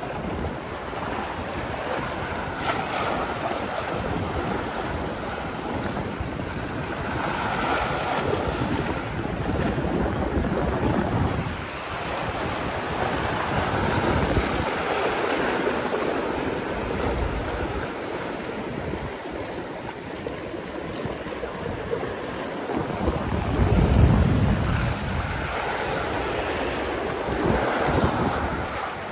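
Sea waves washing against a rocky shore, with wind buffeting the microphone. The surf swells and eases several times, with the strongest surge about three-quarters of the way through.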